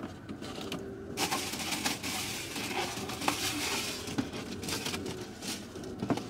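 Takeout packaging being handled: a few seconds of crinkly plastic-bag rustling with many small clicks, fading out, then a single sharp click near the end.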